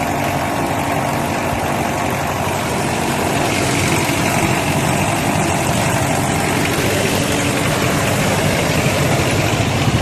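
Jeepney engine idling steadily.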